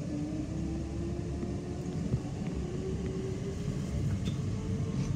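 Class 465 Networker electric train heard from inside the carriage: a steady rumble of wheels on track, with the traction motors' whine rising slowly in pitch as the train gathers speed.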